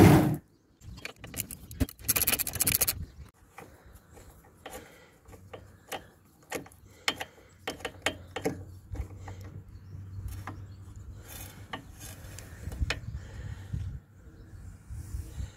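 A ratchet wrench with a 17 mm socket working the oil drain plug loose on a CFMoto ZForce 800 engine: a run of short, irregular ratchet clicks and metal taps. A louder scraping rustle comes about two seconds in.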